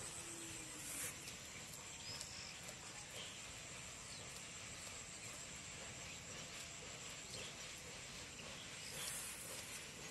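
Quiet rural outdoor ambience with a steady high insect drone, and brief soft rustles about a second in and again near the end.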